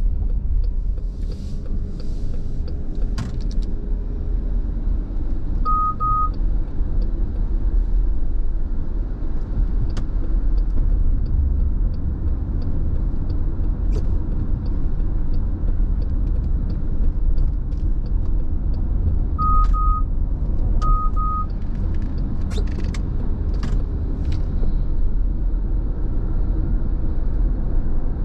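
Steady low road and engine rumble heard inside the cabin of a moving car on wet pavement. Short double beeps sound about six seconds in and twice more around twenty seconds in, with a few faint clicks.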